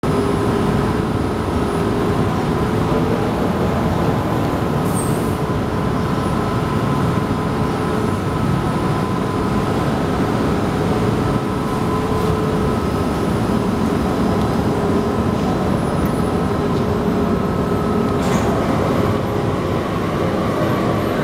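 Workshop machinery running steadily: a loud, even rumble with a few constant hum tones over it.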